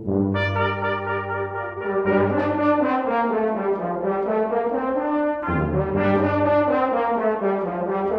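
Brass ensemble playing slow, sustained chords of trumpet, horn and trombone, moving to a new chord every few seconds, in a Christmas piece.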